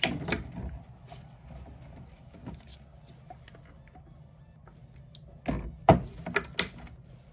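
Handling noise from a plastic paint bottle: a couple of clicks near the start, then a burst of sharp knocks and clicks about five and a half seconds in as the bottle is set back down on the spray booth tray, over a faint steady low hum.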